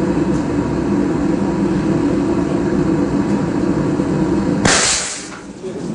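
Pressurised foamy liquid spraying out of the valve of an upturned red tank onto a concrete floor: a steady gushing rush, with a brief, brighter hiss near the end.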